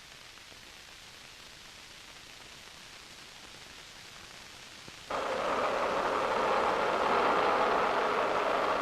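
Faint soundtrack hiss, then about five seconds in a loud, steady rush of air starts abruptly: a wind tunnel running.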